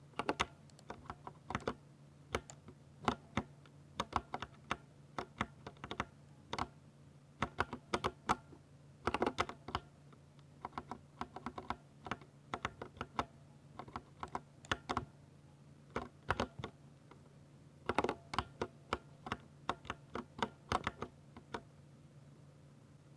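Typing on a Ducky 60% mechanical keyboard with Cherry MX Silver linear switches: irregular bursts of quick keystrokes, clicking and clacking, with short pauses between runs. The typing stops a little before the end.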